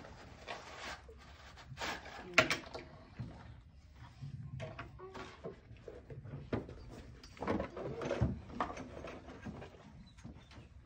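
Scattered knocks, clicks and rustles of objects being handled, the sharpest knock about two and a half seconds in, with faint children's voices now and then.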